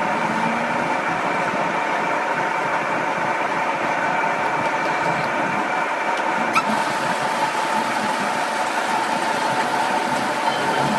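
A motor or engine running steadily with a constant hum, and one short sharp click about six and a half seconds in.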